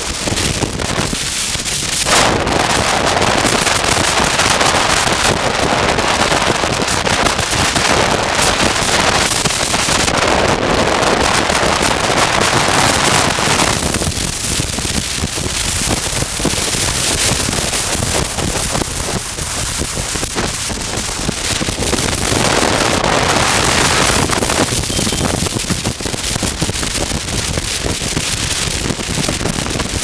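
Wind rushing over the microphone of a camera on a moving motorcycle. It is a loud, even noise that swells about two seconds in, eases for a while in the middle and rises again.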